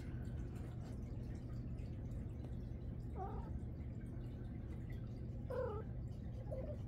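Calico cat meowing: three short calls, two in the middle and a shorter one near the end.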